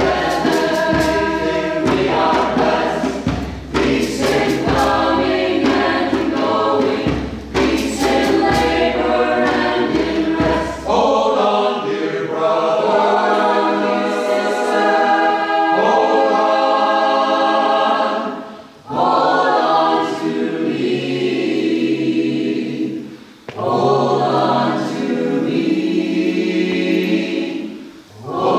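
Mixed choir of men's and women's voices singing in harmony, with brief breaks between phrases about two-thirds through, again a few seconds later, and near the end.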